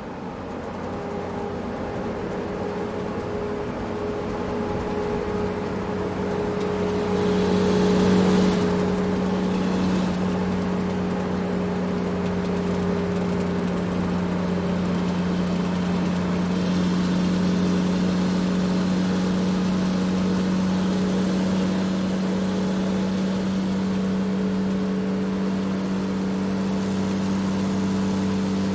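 Large truck driving, its engine running with a steady hum that builds over the first several seconds. About eight seconds in there is a brief louder rush of noise, after which the engine holds a steady level.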